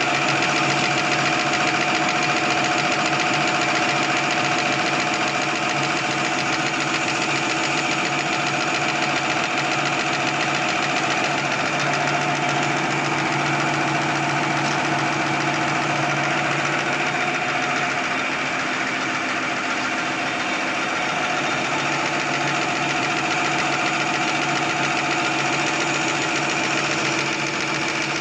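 XY-OQ-7000A automatic napkin tissue folding machine running steadily, with its main drive and band-saw cutter both running: a continuous even mechanical noise with steady humming tones.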